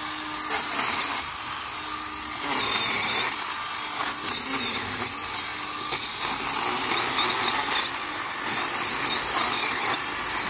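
DeWalt cordless pole saw's small electric chainsaw head running and cutting into thick shrub stems, a steady motor whine and chain buzz that shifts in pitch and loudness several times as the chain bites in and eases off.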